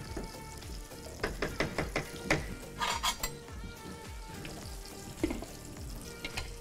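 A metal spoon knocking and scraping against a pot as food is stirred: a quick run of clinks about a second in, a short scrape around the middle and one more knock near the end, over a faint sizzle of frying.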